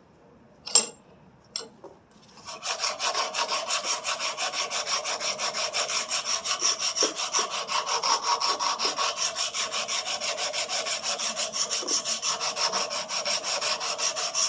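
Sandpaper rubbed by hand over a carved pine lure body in quick, even back-and-forth strokes, starting after about two and a half seconds of quiet broken by a sharp click.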